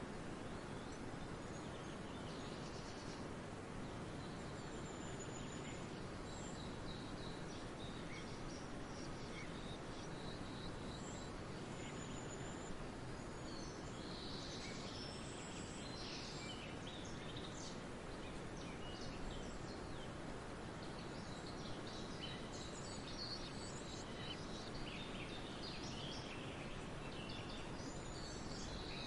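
Steady wind blowing across a barley field, with swallows chirping in short, scattered calls that come more often in the second half.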